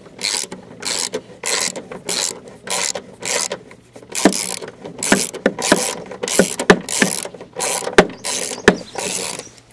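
Socket ratchet wrench being swung back and forth on a bolt, its pawl clicking in quick strokes about two a second. Sharper clicks come in about halfway through.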